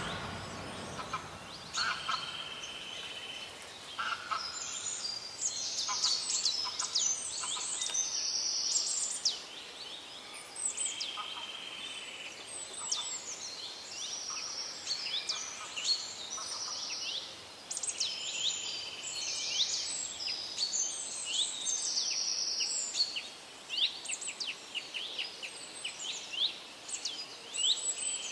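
Several small birds chirping and calling, with short high chirps, quick falling notes and buzzy trills following one another almost without pause.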